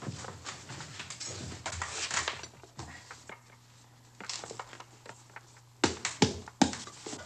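Kitchen bustle: rustling, scraping and light clatter, then a run of sharp knocks about six seconds in, over a low steady hum.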